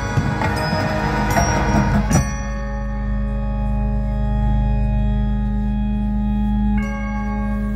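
Marching band with its front-ensemble mallet percussion playing: quick struck bell-like notes for about two seconds, then a long held chord, which moves to a new held chord near the end.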